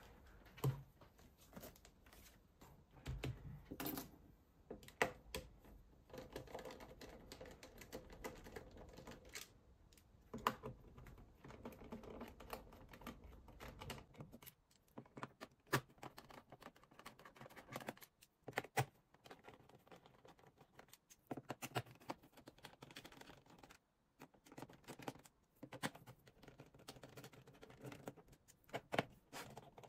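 Irregular plastic clicks, taps and knocks as a handheld diagnostic scan tablet is handled, turned over and set down on a table, with light rubbing between them.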